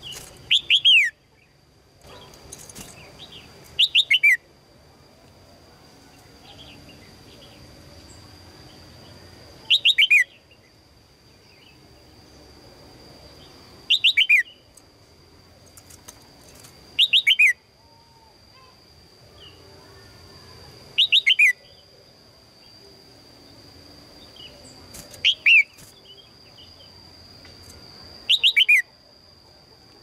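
Red-whiskered bulbul calling in short bursts of three or four quick, falling chirps, eight bursts spaced a few seconds apart. A steady faint high whine runs underneath.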